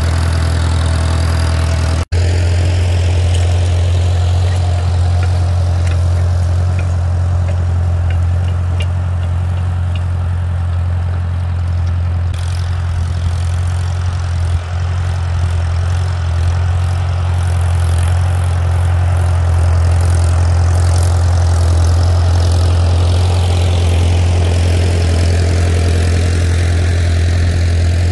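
Farmall A tractor's four-cylinder gasoline engine running steadily under load, pulling a two-bottom plow in first gear without sputtering. The sound breaks off for an instant about two seconds in, and it grows a little louder and brighter in the second half as the tractor and plow come closer.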